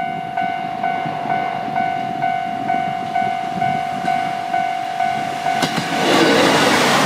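Level-crossing warning alarm ringing in a steady electronic ding about twice a second. About six seconds in, a train reaches the crossing and its loud rushing wheel and rail noise drowns the alarm out.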